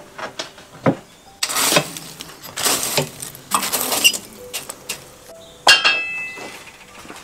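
Metal shashlik skewers being handled: a few short scrapes, then one sharp ringing clink of metal on metal about two-thirds of the way through.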